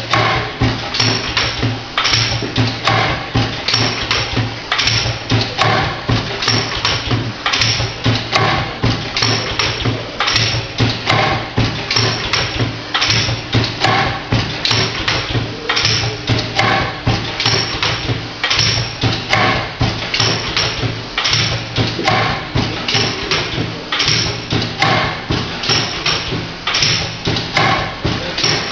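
Pneumatic pad printing machine running through its print cycles. Its air cylinders knock quickly and repeatedly as the pad and shuttle move, with short hisses of air and a steady low hum underneath.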